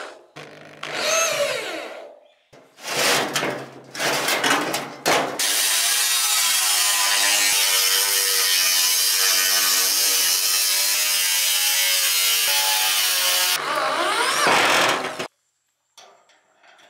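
Power drill driving screws into a steel hinge in short bursts, its motor speeding up and slowing down, then an angle grinder cutting through the rusted sheet steel of a barrel for about eight seconds, then one more short drill burst.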